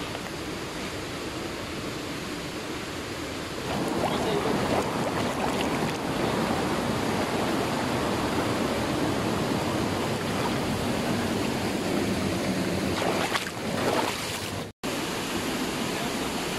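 Shallow rocky stream rushing over stones, with splashing as people wade through it. The water gets louder and closer about four seconds in.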